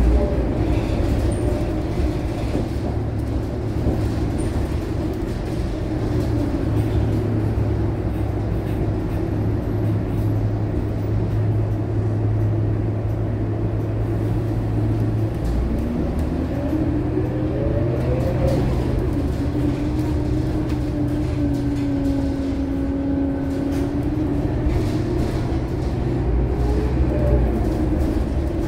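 Scania K230UB city bus heard from inside the passenger cabin while driving: the diesel engine and drivetrain give a steady low drone over road noise. About halfway through, a whine rises in pitch over a few seconds as the bus accelerates, then holds steady.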